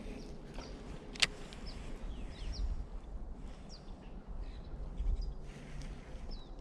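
Small birds calling with short, falling chirps, repeated every second or so, over a steady low rumble. A single sharp click comes about a second in.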